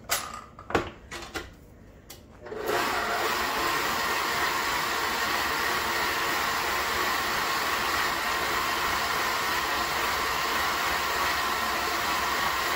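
Electric stand mixer: a few knocks as its tilt head is lowered into place, then about two and a half seconds in the motor starts and runs steadily with a high whine, its flat beater turning through flour and cake batter in a stainless steel bowl.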